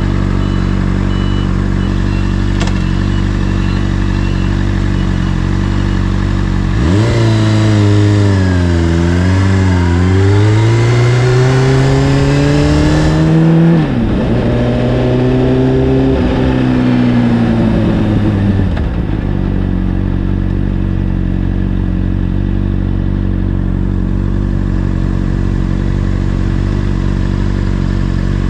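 Honda CBR600RR inline-four with an Akrapovic exhaust running at a steady low note. About seven seconds in it accelerates, its pitch climbing in steps broken by sudden drops at the gear changes. About nineteen seconds in it falls back to a steady note.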